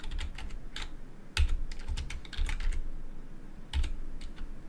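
Typing on a computer keyboard: an uneven run of short keystroke clicks, a few of them louder than the rest.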